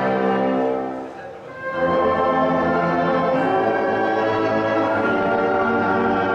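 Orchestral music with strings and brass holding sustained chords; the sound dips briefly about a second in before a new chord enters and is held.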